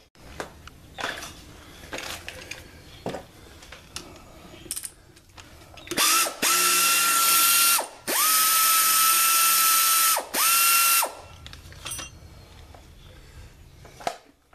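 Pneumatic air ratchet driving a bolt on a riding-mower hydrostatic transaxle's bracket. It runs in three bursts about halfway through, each a steady high whine with air hiss, the middle one about two seconds long. Light clicks of metal being handled come before and after.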